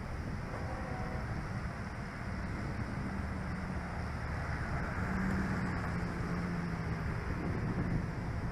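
Steady low vehicle rumble with a droning hum, a little louder about five seconds in.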